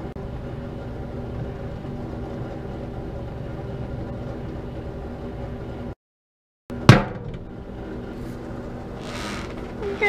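Microwave oven running with a steady hum while a bingo dauber heats inside it. About seven seconds in, just after a brief break in the sound, there is a single sharp bang as the dauber bursts, and the hum goes on.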